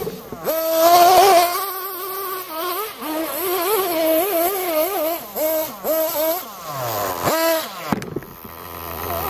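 Radio-controlled car's small high-revving motor buzzing and revving, its pitch rising and falling with the throttle, with a sharp drop and a fresh climb about seven seconds in before it eases off near the end.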